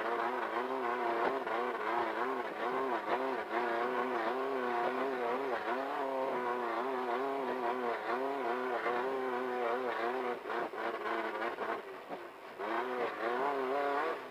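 Class 1500 off-road race car's engine running hard over rough desert terrain, its pitch rising and falling constantly as the revs change. It eases off about ten seconds in, picks up again, then drops near the end.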